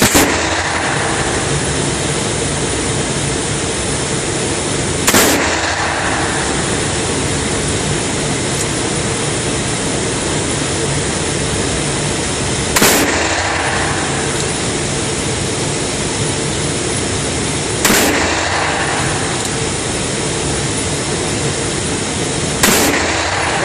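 Five single shots from a .44 Magnum revolver, slowly spaced about five seconds apart, each a sharp crack with a short echo, over a steady loud rushing noise.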